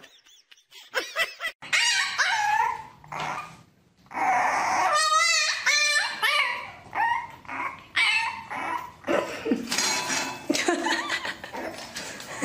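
A puppy whining and yipping: a string of short, high cries that slide and waver in pitch, one with a quick trill about five seconds in.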